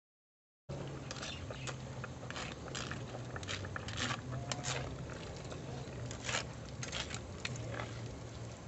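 A spoon scraping and pressing boiled guava pulp through a plastic strainer over the soup pot, squeezing out the juice to sour the sinigang: irregular scrapes and taps, over a steady low hum.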